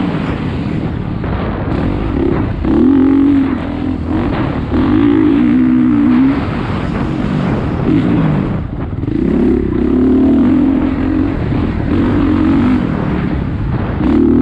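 Vehicle engine running hard through laps on a track. Its pitch repeatedly climbs under acceleration and drops away, with one long falling sweep about eight seconds in, over steady rushing noise.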